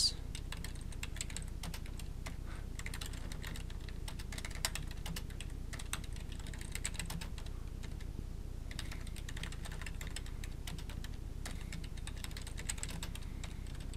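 Computer keyboard typing in irregular runs of keystrokes, with a short pause a little past the middle, over a steady low hum.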